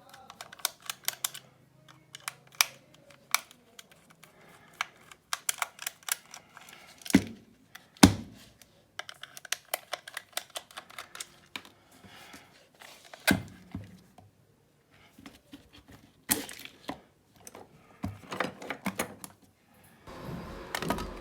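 Irregular clicks and a few louder knocks of small plastic and metal parts being handled as an electric hair clipper is opened up.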